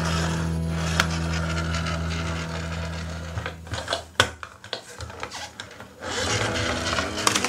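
Toy police car's small motor whirring steadily as it drives across the floor. It fades about three seconds in, leaving a few clicks and knocks, and comes back louder about six seconds in as the car returns.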